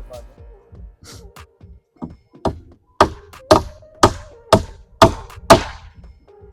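Hammer blows during coop building: a few light taps, then a run of about seven hard, sharp strikes at roughly two a second, each with a short ring.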